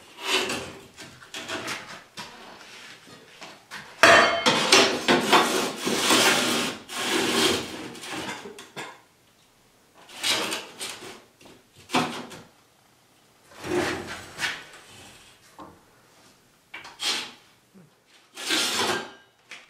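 Strips of slate ledger stone being handled on a tile saw's metal table: an irregular run of scraping and clattering, densest and loudest for several seconds about four seconds in, then in shorter separate bursts.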